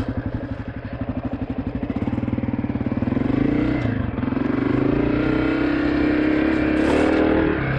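A 2023 Honda CRF250F's single-cylinder four-stroke engine runs at low revs with its separate firing beats audible, then revs up under throttle. It eases off briefly about four seconds in and climbs again.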